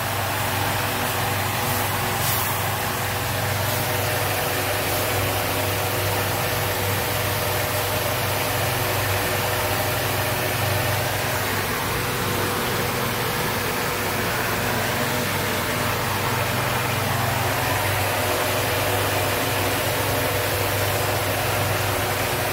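Steady roar of a large cooking burner firing under a big aluminium pot, with a constant low hum.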